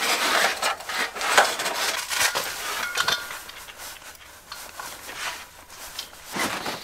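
Handling noise as a propane hose is hooked up between a propane tank and a portable heater: rustling and scraping with small metallic clinks from the hose fittings and tank valve, the loudest near the start and about a second and a half in.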